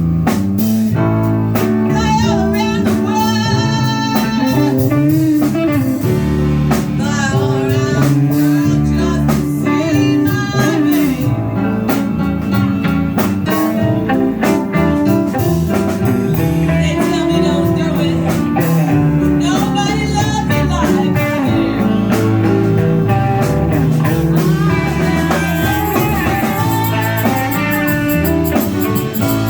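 Live band playing a blues number, with guitar and drums.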